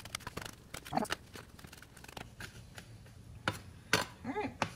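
Knife chopping fresh basil on a plate: irregular sharp taps as the blade strikes the plate, with a short voice-like sound near the end.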